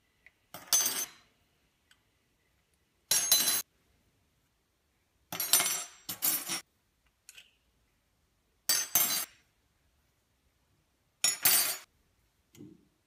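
Metal teaspoons clinking against a china sugar bowl and espresso cup and clattering down on a wooden tabletop, in short bursts every two to three seconds.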